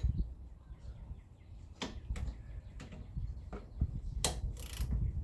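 Hand tools on a car's rear brake caliper: a few sharp metallic clicks about two seconds in, then a run of quick clicks from about four seconds in as a ratchet begins turning the caliper bolt.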